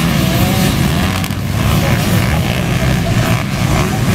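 Motocross dirt bike engines running hard at racing revs, their pitch rising and falling as the riders open and close the throttle.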